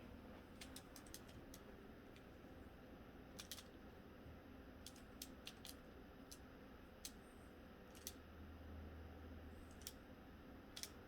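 Plastic Pyraminx puzzle being twisted by hand: faint, irregular clicks as its layers snap round, some coming in quick runs of two or three.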